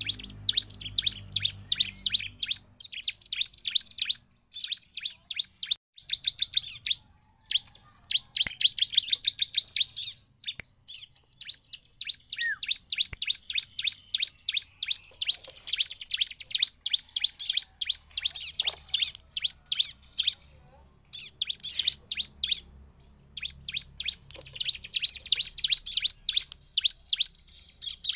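Bar-winged prinia (ciblek) singing: rapid runs of sharp, high chirps repeated many times a second, in bouts with short pauses between them.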